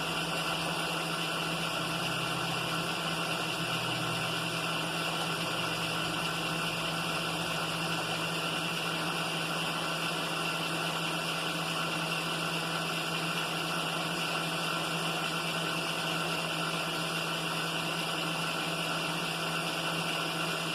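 Milling machine spindle running steadily as a boring head and bar take a light finishing cut of a few tenths of a thousandth in a bore; an even hum with no change.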